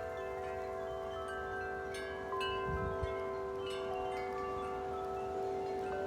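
Wind chimes ringing in the wind, struck again and again so that many notes overlap and hang on. A gust rumbles on the microphone about two and a half seconds in.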